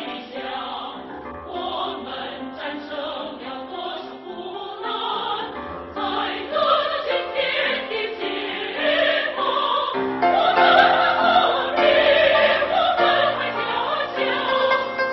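Background music: classical-style choral singing with sustained, slowly changing notes.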